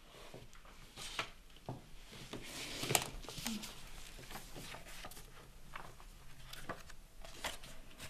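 Light rustling, scraping and scattered soft knocks of books and objects being handled and moved on a bookshelf, the loudest knock about three seconds in.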